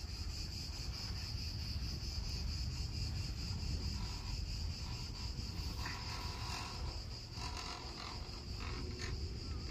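A chorus of cicadas buzzing steadily in one high, unbroken note, over a low rumble of wind on the microphone.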